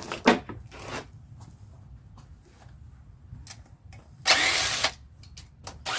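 Handheld power tool, a cordless drill or driver, run in two short bursts about a second and a half apart, with a few light knocks of metal parts before them. It is most likely backing out the bolts of the motorcycle's clutch-cable bracket.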